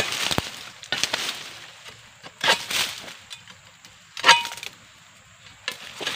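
Freshly sharpened egrek, a sickle blade on a long pole, cutting into the stalks of oil palm fronds: about five crunching cuts a second or so apart, one with a brief metallic ring.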